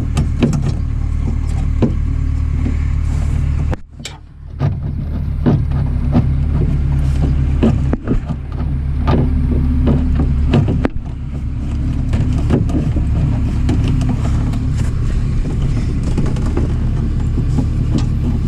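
Scattered light clicks and knocks of metal and plastic parts being handled inside a car door, over a steady low hum that briefly drops out about four seconds in.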